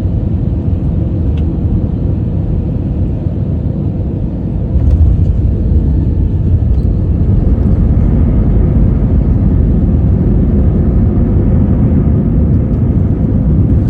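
Airliner rumbling steadily during its landing, growing louder about five seconds in.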